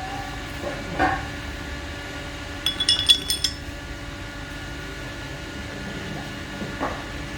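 Small metal parts clinking together in a quick cluster of ringing taps about three seconds in, with a duller knock about a second in and another near the end, over a steady background hum.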